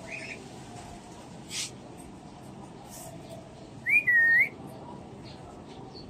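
Cockatiel whistling: a short warbling chirp at the start, then about four seconds in a loud, clear two-part whistle, a quick rising note followed by a note that dips and rises again.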